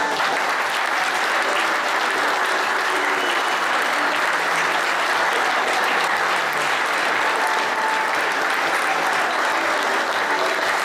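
Audience applauding: a room of seated dinner guests clapping steadily.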